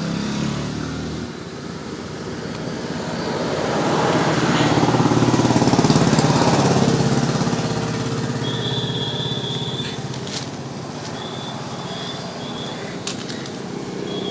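A motor vehicle's engine passing by, rising to its loudest about five or six seconds in and then fading away. Later come a few sharp metal clinks.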